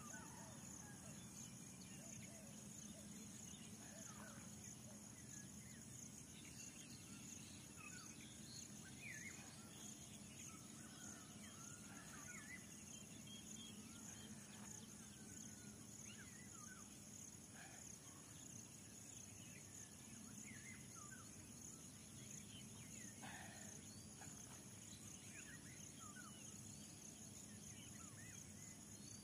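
Faint open-field ambience: insects keep up a steady high-pitched drone, and short bird chirps come and go.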